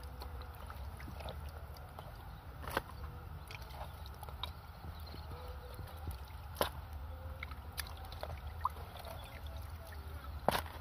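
Water sloshing and dripping as fish are rinsed by hand in a bamboo basket dipped in a river, over a low steady rumble. Three sharp clicks stand out, about four seconds apart.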